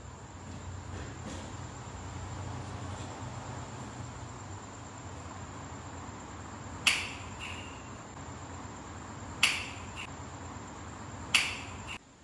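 Three sharp clicks about two to two and a half seconds apart, each followed shortly by a fainter second click, over a steady low hum and a thin, high, steady tone.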